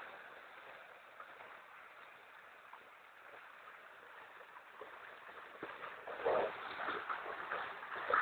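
Rustling and squelching of movement through wet grass and mud, irregular and louder about six seconds in, over a steady outdoor hiss.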